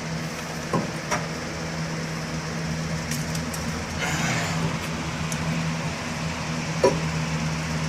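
A steady machine hum runs throughout, with a few light clicks and clinks of metal brake parts being handled: one near the start, and one near the end.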